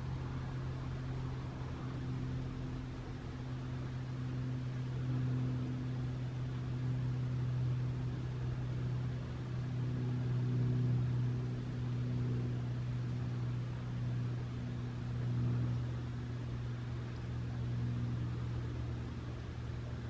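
A steady low mechanical hum with a fainter higher tone above it, over a low hiss; no bird song stands out.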